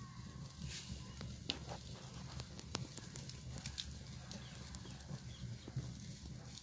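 Open wood fire burning under a spit: a steady low rumble of flames with scattered sharp crackles and pops at irregular moments.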